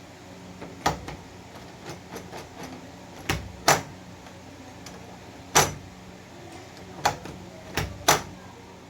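Sharp, irregular clicks and knocks of door knob hardware being handled and fitted, about seven in all, the loudest near the middle and near the end, over a low steady hum.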